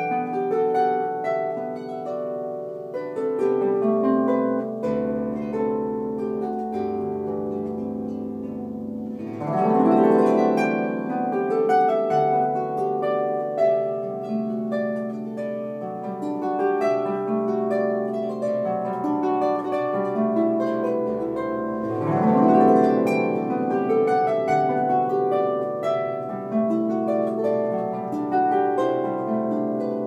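Solo electric harp playing a plucked melody over bass notes, with a rising glissando about nine seconds in and another about twenty-two seconds in.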